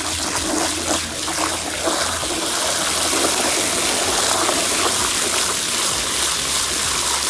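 A garden hose spraying a hard jet of water into a plastic bucket, a steady splashing rush that builds slightly a couple of seconds in. The water is washing crushed African giant snails, and their slime whips it into froth.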